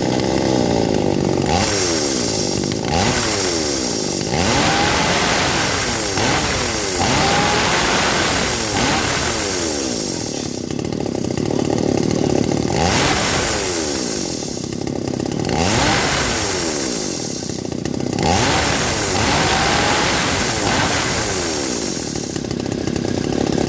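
Two-stroke chainsaw engine running and being revved over and over, its pitch rising and dropping back every two seconds or so. It is being test-run with a newly fitted carburettor.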